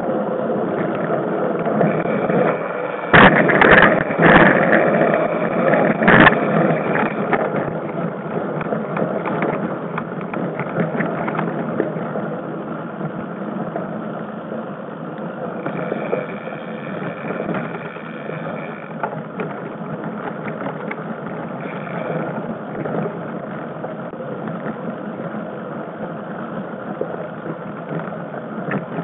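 A mountain bike ridden fast over a dirt forest trail, heard through a bike-mounted camera: a steady rough rumble and rattle from tyres and jolting, with a few sharp loud knocks about three to six seconds in.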